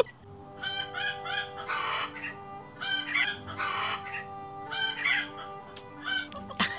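Domestic chicken clucking in short bursts of calls, several times, over soft background music with long held notes.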